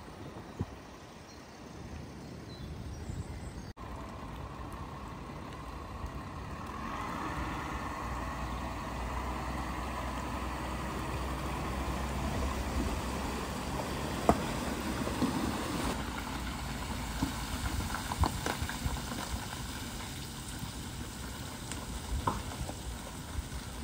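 Floodwater rushing and hissing in a steady wash, with a low rumble underneath and a few sharp knocks.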